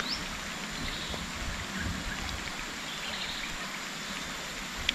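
Steady hiss of rain falling, mixed with a rushing stream, with a few faint high chirps over it.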